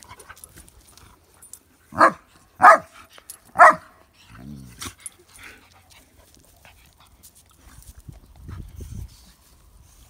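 Dogs at rough play. About two seconds in come three short, loud barks, roughly two-thirds of a second apart, followed by quieter dog vocal sounds.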